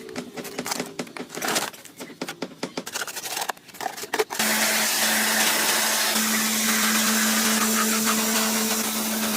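Irregular clattering and knocking, then about four and a half seconds in a motor-driven machine starts abruptly and runs with a steady hiss over a low hum.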